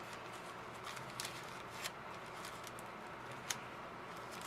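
Faint handling of paper packaging: a few small clicks and rustles as the paper wrapping and label are worked loose by hand.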